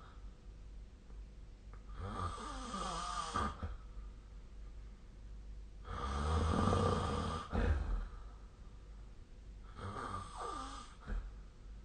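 A sleeping person snoring: three snores about four seconds apart, the middle one the loudest.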